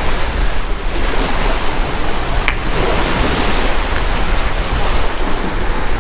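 Steady rush of wind and small waves washing on a rocky shoreline, with the wind buffeting the microphone. There is a single short click about two and a half seconds in.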